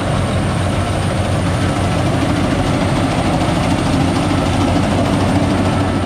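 Rice combine harvester (102 PRO) running steadily as it cuts storm-flattened rice: engine, cutter bar and threshing drum together making a loud, even mechanical noise with a faint high whine over it.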